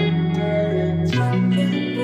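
Background music led by guitar, with sustained bass notes that change about a second in.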